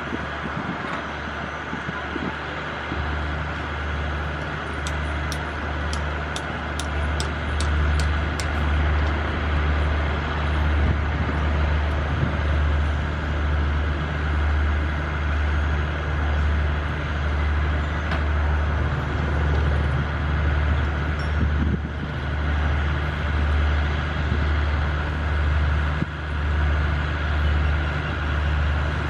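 Alsthom diesel-electric locomotive running at low power as it creeps forward, a low, steady engine drone that swells and fades in a slow, regular pulse. A quick run of about nine sharp ticks comes a few seconds in.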